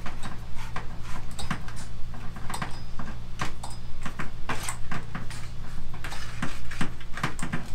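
Irregular small clicks and knocks of a handheld shower head being twisted by hand onto its hose and inline shutoff valve, over a steady low hum.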